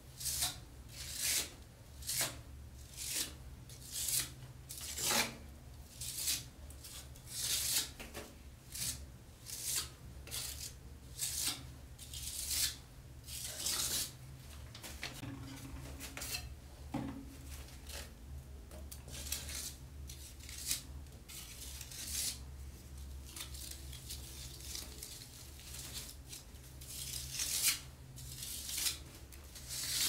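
Putty knife scraping and spreading wet gypsum plaster (Knauf Rotband) onto a wall in short repeated strokes, about one a second for the first half. The strokes grow sparser in the middle and pick up again near the end.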